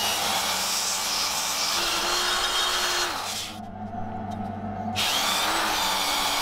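Straight die grinder with an abrasive flap disc sanding the hardened steel of a forged helmet's chin: a steady grinding hiss over the motor's hum. The grinding breaks off for about a second and a half a little past the middle, then resumes.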